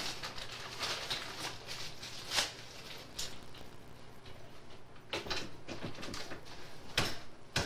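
Irregular soft knocks, clicks and rustles over a steady low hum and tape hiss, with a sharper knock about seven seconds in.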